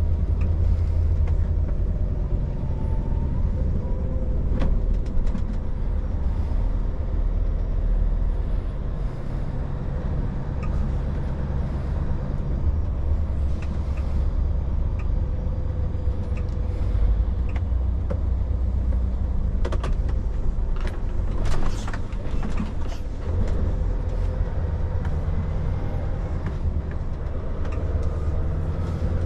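Truck engine and road noise: a steady low rumble, with a cluster of clanks and rattles about twenty seconds in.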